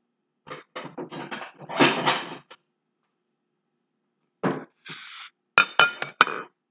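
Kitchenware clattering and scraping for a couple of seconds. After a pause come a few sharp clinks with a brief ring, as a white ceramic plate is set down on the countertop.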